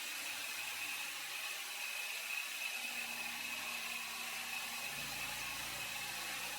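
CNC milling machine running: a steady hiss with a faint, constant high-pitched whine.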